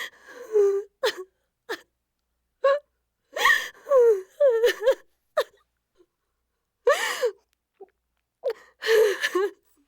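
A baby crying intensely in short, broken cries, each a second or less, whose pitch wavers up and down, with silent gaps between them.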